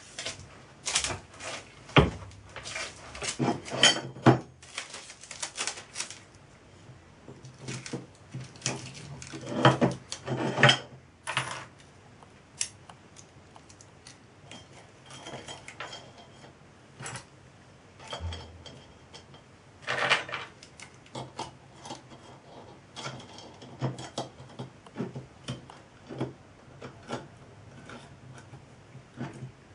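Small steel brackets, screws and an Allen key clinking and clattering against aluminium extrusions on a wooden workbench as they are handled and fitted together. Irregular metallic clicks and taps, busiest in the first few seconds and again about ten seconds in.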